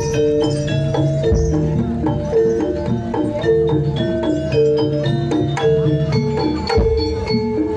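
Javanese gamelan music for jaranan: metal-keyed percussion plays a steady, repeating pattern of struck, ringing notes, with a few heavy low strokes.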